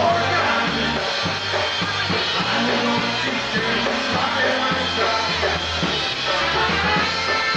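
Live polka band playing a dance tune.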